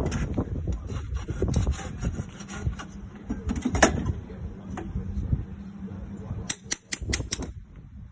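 Farrier's steel tools working on a shod horse's hoof while the nails are clenched up: irregular scraping and rubbing against the hoof wall with a sharp knock about four seconds in, then near the end a quick run of about six light, ringing metal taps.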